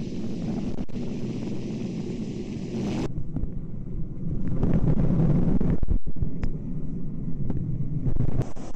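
Super Puma helicopter running, heard from on board as a loud, dense low rumble of rotor and turbines with wind buffeting the microphone. The sound briefly cuts out about six seconds in.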